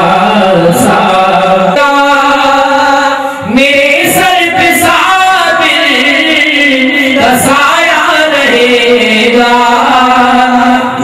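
Men singing a Sufi devotional chant unaccompanied into microphones, with long held, wavering notes. There is a short break about three seconds in before a new phrase begins.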